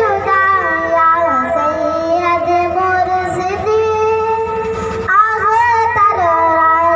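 A boy singing solo into a microphone, holding long, ornamented notes that slide between pitches, with a short break for breath about five seconds in before the next line.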